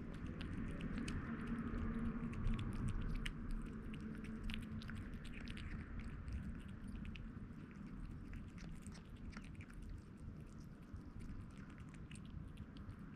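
A kitten eating canned wet cat food, with rapid irregular wet chewing and lip-smacking clicks.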